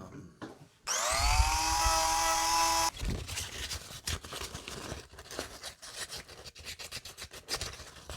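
Dremel rotary tool spinning up with a rising whine, running steadily for about two seconds and stopping suddenly, followed by irregular scraping as the wooden ring is worked by hand.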